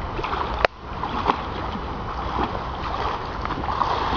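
Pool water splashing and sloshing as a swimmer kicks and strokes through it, with one sharp click a little under a second in.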